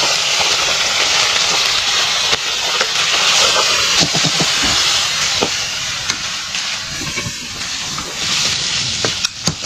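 Raw meat sizzling in hot oil in a metal karahi as it is tipped in and stirred, a loud steady hiss with the scrape of a ladle against the pan.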